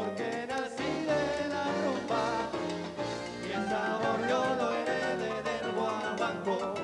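Salsa band playing live: timbales and cymbal struck over guitar, in a steady dense groove.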